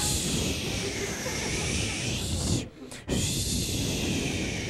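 A steady hissing, rustling noise that breaks off briefly just under three seconds in, then resumes.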